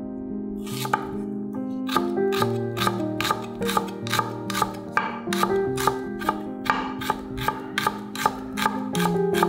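Chef's knife slicing small onions on an end-grain wooden cutting board, each stroke knocking the board: a few strokes at first, then a steady rhythm of about three a second from about two seconds in. Soft background music plays underneath.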